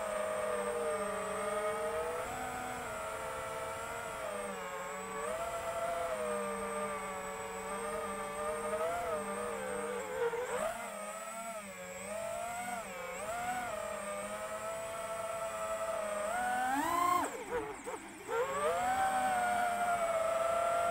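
FPV drone's electric motors whining as heard from its onboard camera, the pitch rising and falling with the throttle. Near the end the whine dips sharply and surges back up.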